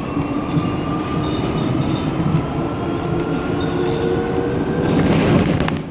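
City bus running steadily, with a continuous rumble and a faint whine that slowly rises in pitch. There is a rush of hissing noise lasting about a second near the end.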